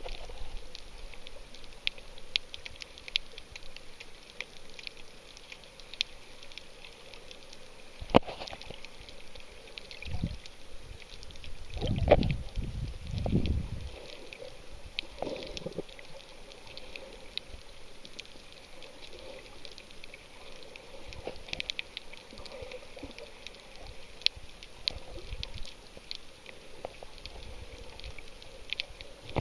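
Underwater sound picked up by a snorkeller's camera over a coral reef: a steady crackle of small sharp clicks, with a few low, muffled surges of moving water near the middle.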